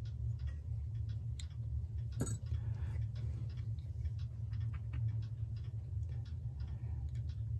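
Faint small clicks and scrapes of a steel oil pin working at a small electric clock motor's felt pad and spindle while the motor is turned in the fingers, with one sharper click about two seconds in. A steady low hum runs underneath.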